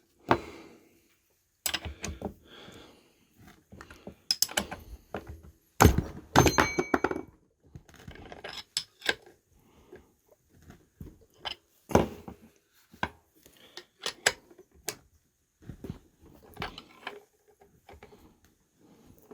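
Irregular metallic clinks and knocks of steel differential parts and tools being handled and set down, with a louder ringing clank about six seconds in.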